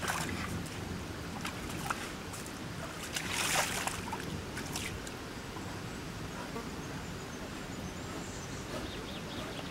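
Brown bear splashing and sloshing water in a stone trough: a few short splashes, and one longer, louder splash about three and a half seconds in.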